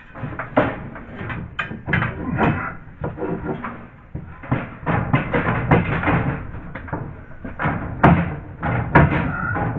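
Irregular knocks, clunks and scraping from hands working a cable and tools through a cramped ceiling cavity between joists.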